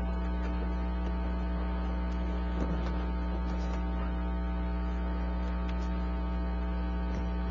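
Steady low electrical mains hum with a buzzy stack of overtones, unchanging in level.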